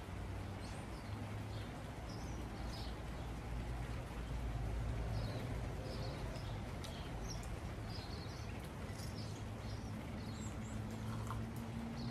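Outdoor backyard ambience: faint, scattered bird chirps over a steady low background rumble.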